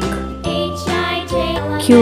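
Bright, jingly children's background music with a steady bass and a tinkling melody.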